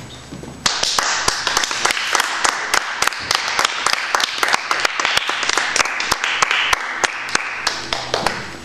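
Audience applauding. It starts suddenly about a second in and dies away near the end.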